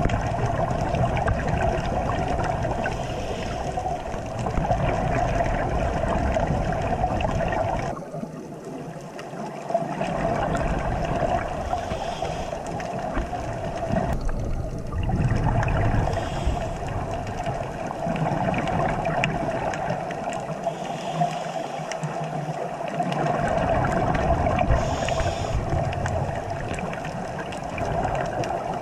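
Muffled underwater noise through a camera housing: a steady hum under a gurgling water wash whose low rumble drops away briefly a few times.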